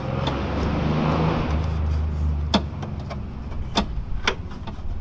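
A car passing on the road: its tyre and engine noise swells and fades over about three seconds. A few sharp clicks follow as hands work on hoses and clamps behind the wheel.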